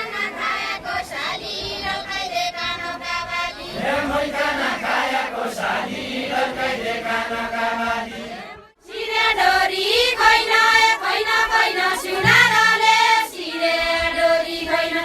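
A group of voices singing a Deuda folk song together as a chant-like song. The singing breaks off abruptly a little past halfway, then starts again.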